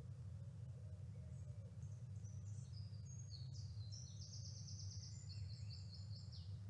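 Faint birdsong, high chirps and a quick trill that build in the second half, over a steady low rumble.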